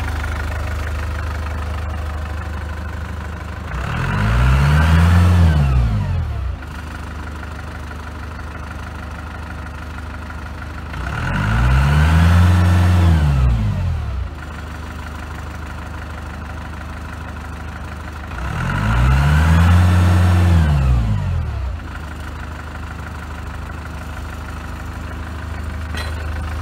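Daewoo forklift engine idling, revved up three times, each time rising and falling back over about two to three seconds. The throttle is blipped to spin the hydraulic pump faster so the fork carriage lifts more quickly.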